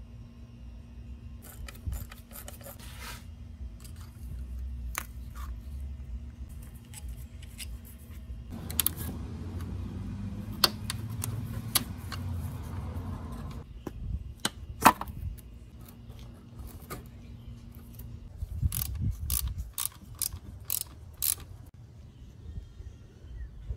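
Hand tools and engine parts clicking and clinking at irregular moments as hoses, clamps and fasteners are worked loose, with a quick run of clicks near the end and a low rumble through the middle stretch.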